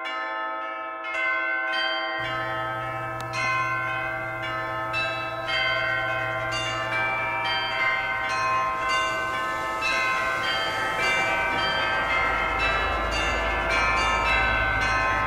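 Bells struck one after another at different pitches, each note ringing on and overlapping the next. A steady low hum comes in about two seconds in.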